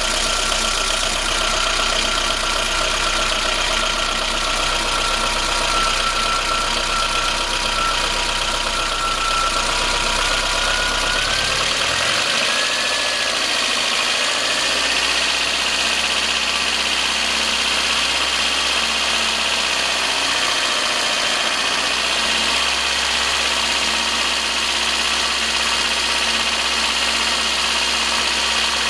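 VAZ 21093 fuel-injected four-cylinder engine idling with a knock from the top of the engine, heard when cold; the owner suspects the valves and plans to adjust them. The engine note shifts slightly about twelve seconds in.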